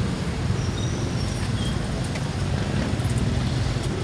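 Steady rumble of road traffic, with vehicles running past.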